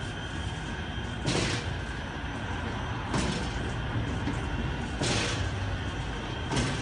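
Automatic car wash machine running over a car: a steady low mechanical hum with a short hissing rush about every two seconds.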